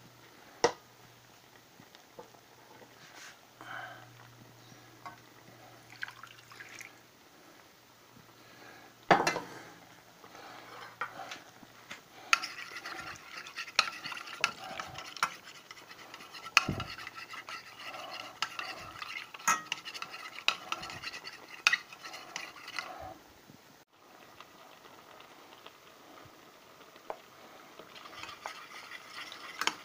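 Metal spoon stirring and scraping inside a stainless steel saucepan of thin gravy, with scattered clinks at first, one sharp knock, then a long stretch of busy stirring through the middle that eases off near the end.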